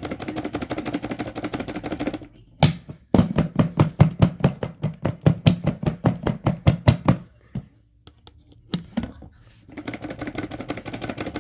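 Bissell vacuum's dust cup and filter being handled. A rapid dense crackle comes first, then a run of hard knocks, about five a second, for some four seconds, as the filter and cup are tapped to loosen the dirt. The crackling returns near the end.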